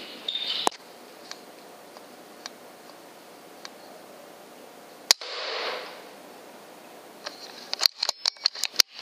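A single shot from an FX Impact M3 .25 PCP air rifle about five seconds in: a sharp crack followed by a short hiss. A quick run of clicks and knocks follows near the end, with a single click about a second in.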